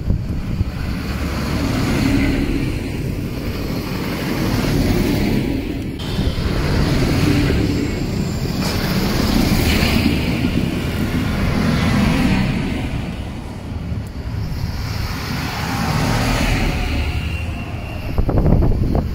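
A line of large farm tractors driving past one after another, their diesel engines swelling and fading as each goes by. The recording is sped up to double speed.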